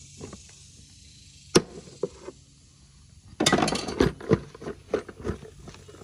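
Hard plastic airbox of a Kawasaki Brute Force 300 ATV being worked loose from the frame by hand: a sharp snap about one and a half seconds in, then from just past the middle a second of dense rattling and scraping of plastic on plastic, followed by scattered knocks.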